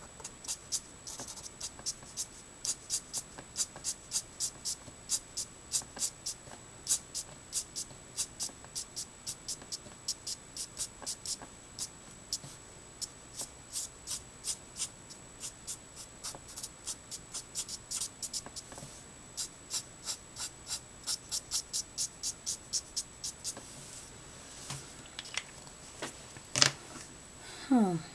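Letraset Promarker alcohol marker flicked across Neenah Solar White card in short strokes, a light scratchy swish about three times a second. The strokes stop a few seconds before the end, followed by a louder click.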